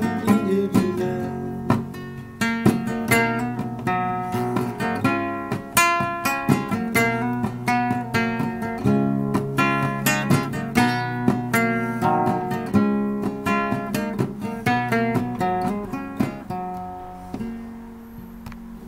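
Acoustic guitar playing a quick run of picked and strummed chords with no voice, the instrumental close of a song. Near the end the notes stop and a last chord rings out and fades.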